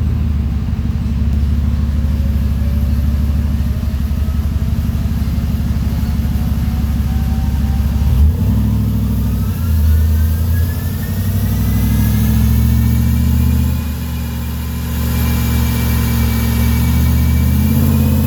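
Supercharged Ford F-150 V8 running loud through its Borla exhaust, a deep steady exhaust note. Over it a thin supercharger whine rises slowly in pitch through the first part, then levels off.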